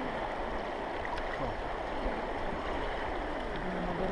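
Steady rush of river water running over a shallow, stony riffle (a Siberian shivera) around a boat drifting through it.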